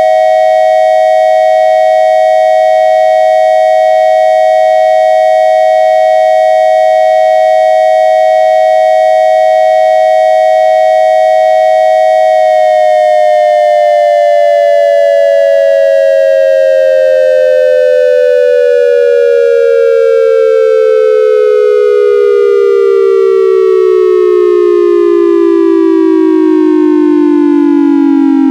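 Synthesized triangle-wave imitation of an ASC dual-tone electronic siren: a steady high tone held for about twelve seconds, then gliding slowly down in pitch as the siren winds down.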